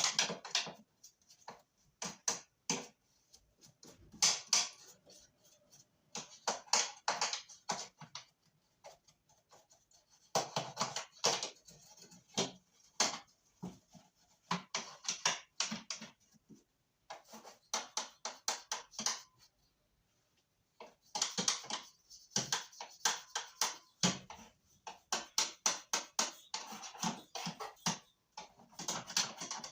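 Bursts of rapid clicking and tapping from hands working on a window-type air conditioner's plastic and metal parts during cleaning, coming in groups of several seconds with short pauses between.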